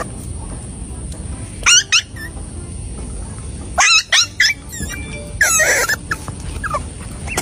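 Squeaky animal calls in three loud bursts, about two, four and five and a half seconds in, each a quick run of rising and falling notes.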